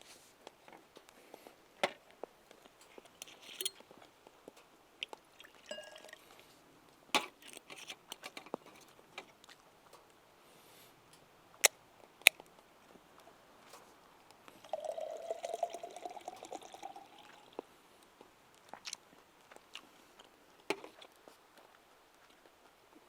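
Scattered light clicks and taps of tableware during a meal, and a liquid being poured into a cup for about three seconds a little past the middle, its pitch rising slightly as it fills.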